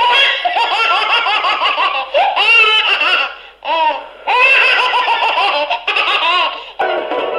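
High-pitched laughter in long runs of rapid giggling pulses, breaking off briefly twice about halfway through.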